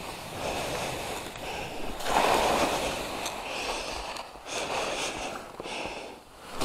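Skis hissing and scraping through chopped-up powder snow in a few swelling turns, the loudest about two seconds in, easing off as the skier slows to a stop near the end.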